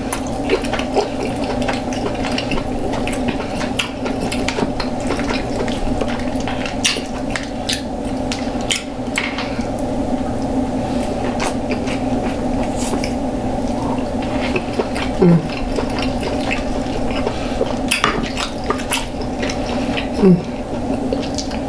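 Close-up eating sounds: wet chewing, smacking and squishing of sauce-covered seafood, with scattered small clicks and taps of shell and utensils, over a steady low background hum.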